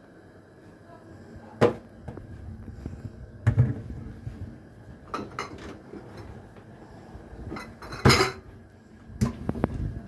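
Wire racks and dishes of a Bosch dishwasher knocking and clinking as it is loaded: a string of sharp, separate knocks, the loudest about eight seconds in.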